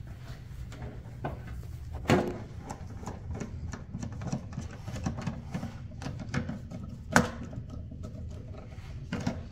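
Small clicks and taps of a hand screwdriver and socket driving screws into motorcycle plastic bodywork, with two sharper knocks of the plastic about 2 and 7 seconds in, over a steady low hum.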